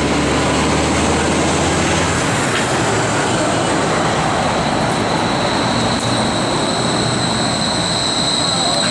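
Škoda 10T1 streetcar approaching a stop, its rolling noise steady. A high, steady whine comes in about three seconds in and grows louder as the car nears. A low hum in the first two seconds stops.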